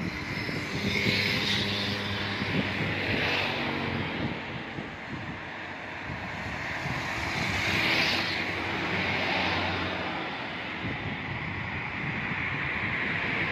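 Motor vehicle traffic passing: a steady engine hum, with a rushing swell of tyre noise about a second in and again around eight seconds in, over wind on the microphone.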